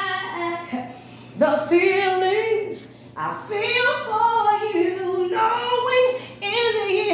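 A woman singing unaccompanied in three held, melismatic phrases with short breaths between them.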